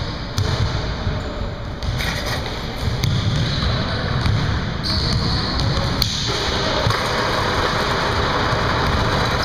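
Basketball thudding and bouncing on a hardwood gym floor during a pickup game, with scattered knocks through a steady, echoing hall noise.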